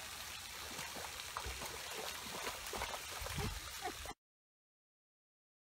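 Steady hiss of a pond fountain's spray falling on the water, which cuts off abruptly to dead silence about four seconds in.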